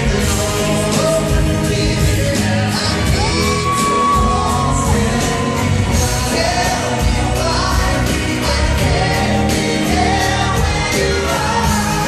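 Live pop vocal group: male voices singing into microphones over acoustic guitar and band accompaniment, amplified through the hall's sound system.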